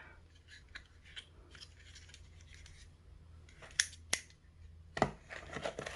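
Small plastic cordless LED nail curing lamp handled and turned over in the hands: faint rubbing and light ticks, two sharp clicks in quick succession about four seconds in, then a knock about a second later.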